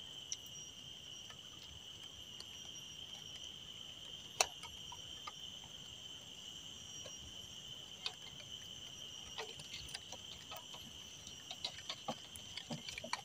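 Steady high-pitched insect chorus, with a few sharp clicks and taps over it; the loudest click comes about four and a half seconds in.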